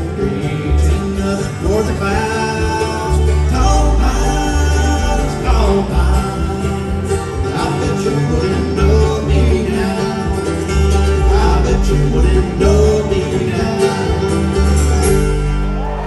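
Bluegrass band playing live, with mandolin, acoustic guitar and upright bass under sung vocals.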